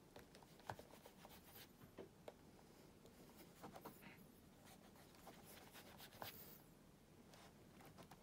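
Faint rubbing of fingertips working shoe cream into the leather of a black cap-toe oxford, with a few soft clicks along the way.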